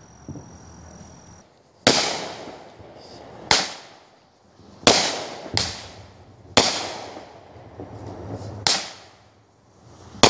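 Aerial fireworks shells bursting overhead: six sharp bangs spaced one to two seconds apart, each trailing off in a fading rumble.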